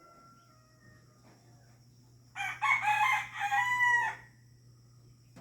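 A rooster crows once, about two seconds in, the crow lasting about two seconds, over a steady low hum.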